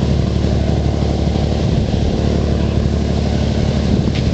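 An engine idling steadily, a deep even hum with a low throb.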